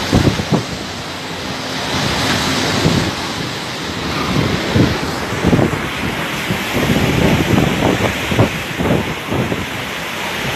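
Hurricane wind blowing hard in a steady rush, with frequent gusts buffeting the microphone in low thumps.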